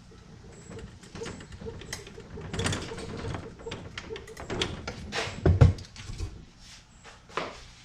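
Irregular knocks, clicks and clatter of objects being handled and set down, with one heavier thump about five and a half seconds in.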